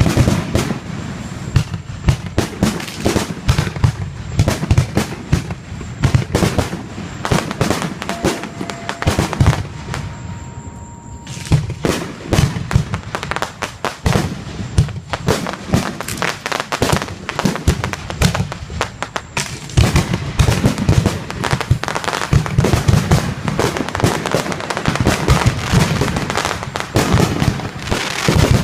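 Fireworks display going off: a rapid, near-continuous run of bangs and crackles, packed closest in the second half.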